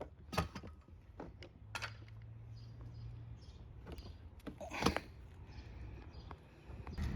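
A few separate knocks and clacks of things being handled and set down, the loudest about five seconds in.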